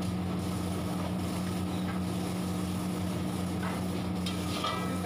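Steady electric motor hum of kitchen machinery, with a few faint scrapes of a metal spatula stirring chicken curry in a large kadhai.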